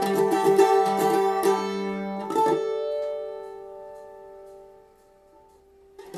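Solo bandolim (Brazilian mandolin) playing quick picked notes, then a chord struck about two seconds in that rings on and slowly dies away. A fresh strum comes in right at the end.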